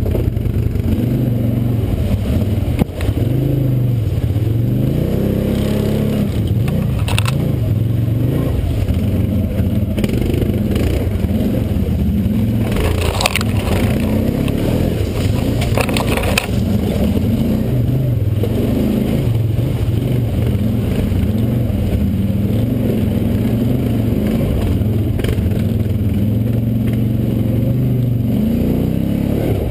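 ATV engine running at low revs while crawling, its pitch rising and falling with the throttle. Brief crackling and snapping of brush and branches against the quad a few times in the middle.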